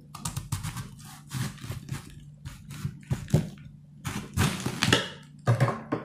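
Kitchen knife cutting a red cabbage into quarters on a cutting board: an irregular run of short, crisp cutting strokes as the blade works through the dense leaves.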